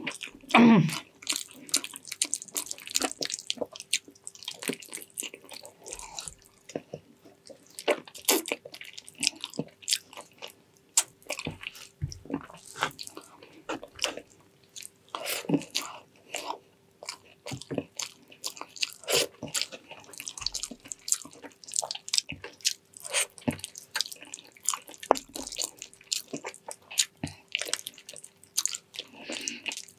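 Close-miked chewing and wet smacking of soft, gelatinous braised pig's trotters: irregular squelches and mouth clicks, with a faint steady hum underneath.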